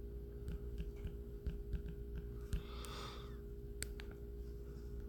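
Faint steady hum with a few soft clicks and a short breath about three seconds in.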